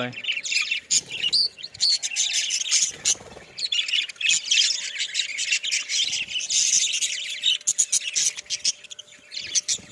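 A flock of budgerigars chirping and chattering continuously, many birds calling over one another in quick, high chirps and squawks.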